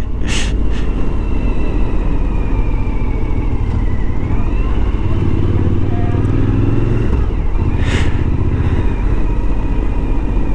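Motorcycle engine running steadily at low riding speed, heard close from the bike, with two brief knocks, one just after the start and one near the end.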